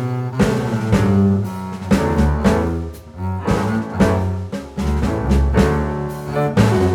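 Instrumental background music with a low bass line and a steady beat.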